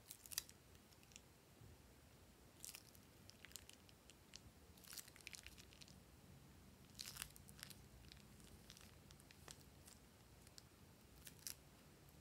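Faint, scattered crinkles and crackles of a plastic piping bag being squeezed by hand, with soft squelches as thick liquid slime is pushed out of its tip.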